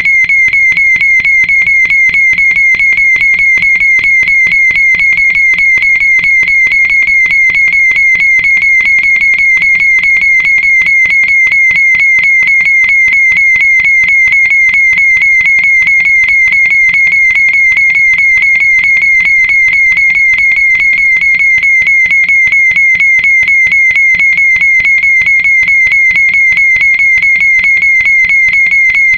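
Fire alarm horn/strobe sounding continuously: a loud, high-pitched tone with a fast, even pulsing buzz, with no breaks.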